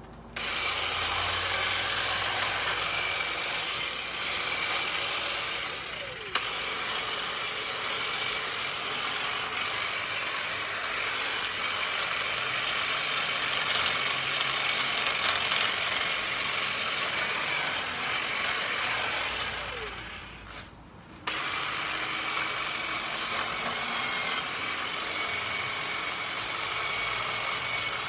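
Hedge trimmer running: a steady, high, hissing mechanical whine. It dips briefly about six seconds in, then drops out for about a second near twenty seconds in before starting again suddenly.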